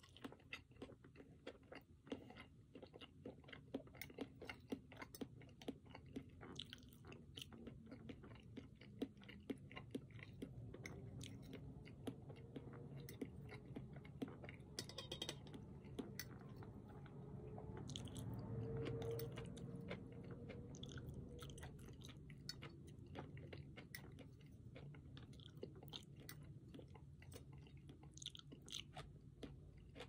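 Close-miked chewing and biting of roasted food, with many small sharp clicks throughout. A louder low swell comes just past the middle.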